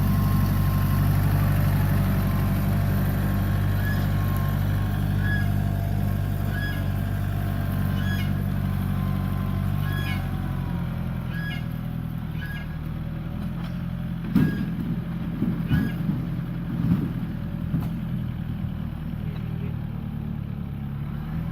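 An engine running steadily at an even pitch, with a light tick repeating roughly once a second. It eases a little after about ten seconds, and a few low knocks come near the end.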